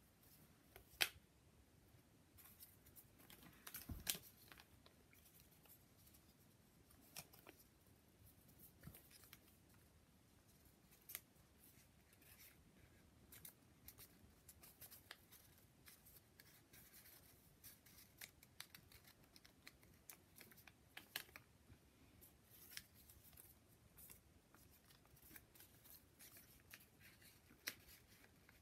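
Faint, scattered crinkles and sharp little snaps of origami paper units being creased and slotted together by hand. The loudest snap comes about a second in, with a short cluster of rustling around four seconds.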